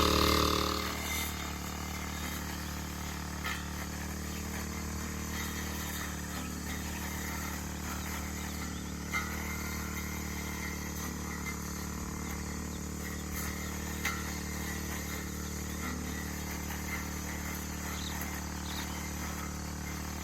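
A steady low hum that holds an even pitch throughout, under faint outdoor background noise, with a few soft clicks.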